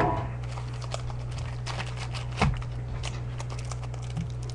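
Foil booster-pack wrapper crinkling and tearing open in short crackles, with a knock about two and a half seconds in, over a steady low electrical hum.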